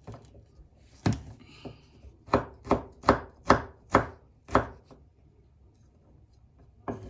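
Kitchen knife chopping a garlic clove on a wooden cutting board: about seven sharp knocks of the blade on the board, one about a second in, then a quick run of six over the next two seconds.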